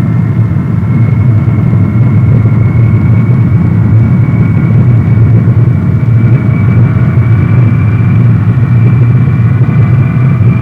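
Jet engines of a C-5A Galaxy at takeoff power during the takeoff roll: a loud, steady low rumble with a high whine that rises slightly in pitch.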